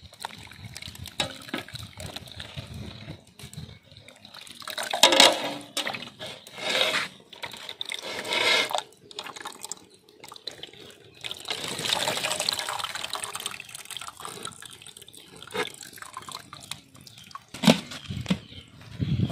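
Water splashing and dripping in a steel basin as hot-water-scalded goat tripe is lifted out onto a steel plate. There are several separate splashes, then a longer run of pouring and dripping past the middle, and a sharp metal clink near the end.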